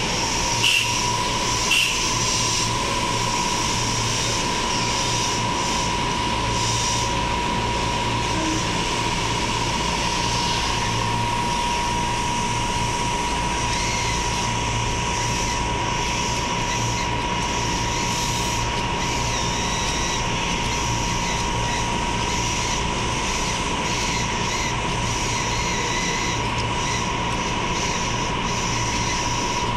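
Stainless-steel KRL Commuter Line electric train standing at the platform with its onboard equipment running: a steady hum under a constant high whine. Two short, sharp high sounds come in the first two seconds.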